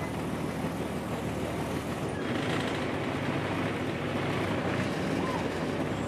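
Sightseeing boat's engine running steadily, heard from inside the passenger cabin. About two seconds in the low hum eases and a hiss rises.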